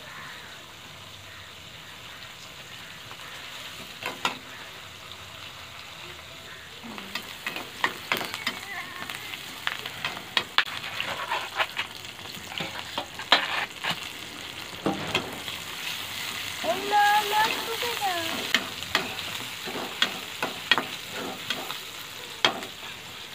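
Food sizzling in a metal pan on the stove, with a steady hiss, then many sharp clinks and scrapes of a spoon against metal from about seven seconds in as chopped tomatoes are added and stirred.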